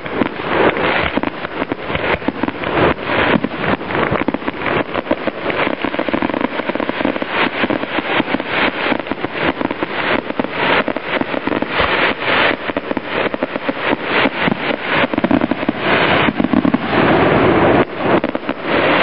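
Fireworks going off in a rapid, unbroken barrage of bangs and crackles, many bursts a second.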